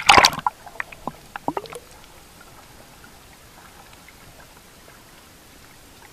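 A camera plunging into seawater: a loud splash and bubbling at the start, a few sharp pops and clicks over the next second or two, then only a faint steady underwater hiss.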